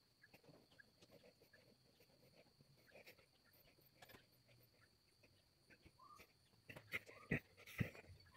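Near silence, with faint scattered ticks and scrapes as a pyrography pen works on a small block of wood in the hands, and a few sharper clicks about seven to eight seconds in.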